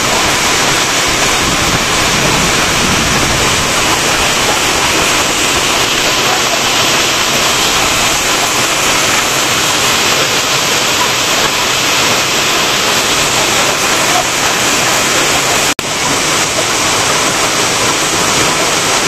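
Heavy rain pouring down and drumming on the corrugated metal sheet roof of a foot overbridge, a loud, steady hiss that breaks off for a moment near the end.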